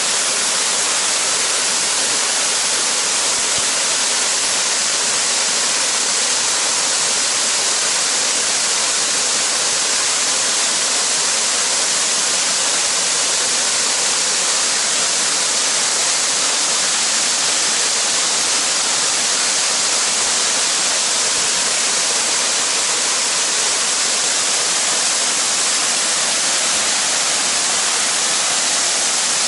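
Waterfall: water falling and splashing, a steady, unbroken rushing hiss.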